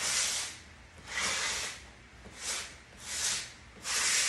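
Hand sanding block rubbed back and forth over the painted wooden edge of a door frame, five hissing strokes about a second apart, sanding back a chalk-paint wash to blend it into the wood stain.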